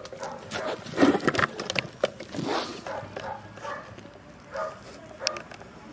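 A dog barking a few short times, with some sharp knocks.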